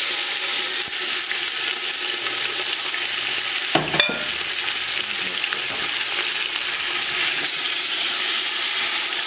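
Beef stew meat searing in hot bacon grease in an enamel stock pot: a steady sizzle as the meat is stirred. A brief knock about four seconds in.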